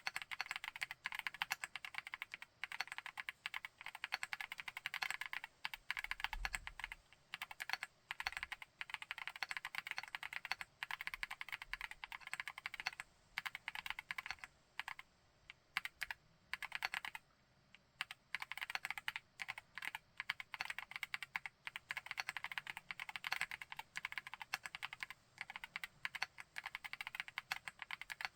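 Typing on a Chilkey PAW65 full-aluminium 65% mechanical keyboard with Pink Lotus linear switches: fast, continuous keystrokes, with a couple of short pauses in the middle.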